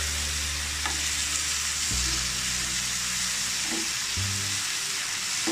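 Chopped tomatoes and onions sizzling in hot oil in a frying pan while a metal ladle stirs them, with a few light scrapes of the ladle.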